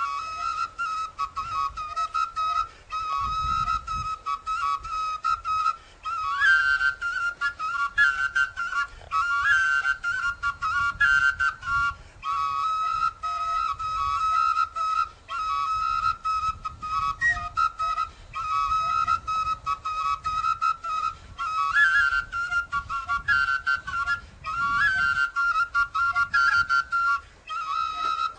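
A small flute-like wind instrument played solo in a fast tune. Short, quickly tongued notes skip up and down within a narrow range, and short phrases repeat every second or so.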